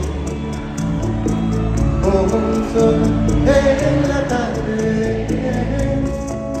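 Live band music with a singer, heard from the crowd in a large arena: held bass notes, a steady ticking percussion beat of about three to four a second, and a sung melody that comes forward about three and a half seconds in.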